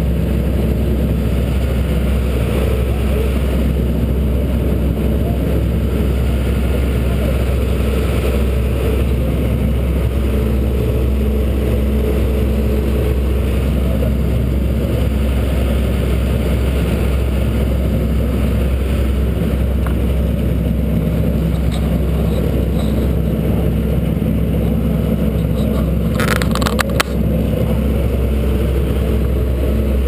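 Steady, low engine drone with a heavy rumble underneath, and a brief cluster of clicks near the end.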